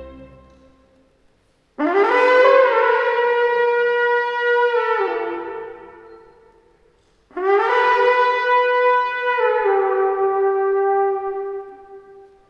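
Wooden shepherd's horn blown in two long calls. Each swoops up into a held note, drops a step lower, and fades out slowly.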